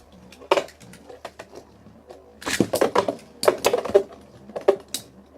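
Two Metal Fight Beyblades, Lightning L-Drago and Galaxy Pegasus, clashing as they spin in a plastic stadium. Sharp metallic clacks: one about half a second in, then a rapid flurry of hits from about two and a half seconds until near the end.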